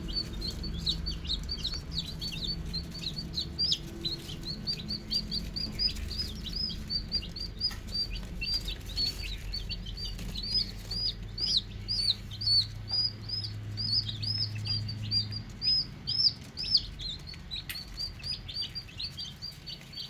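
Many desi chicks peeping continuously, short high down-slurred chirps several a second, overlapping.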